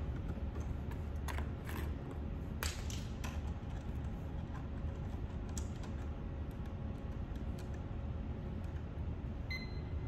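Scattered light clicks and taps as wire ends are worked into a control panel's terminal blocks by hand, over a steady low hum. A short high beep sounds near the end.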